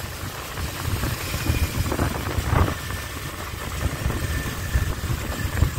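Steady low rumble of vehicle engines and road noise while on the move in traffic.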